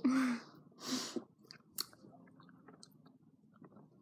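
Close-up chewing of hard, chewy bonbon sweets: faint wet mouth clicks and crunches. A short vocal sound at the start and a breathy exhale about a second in.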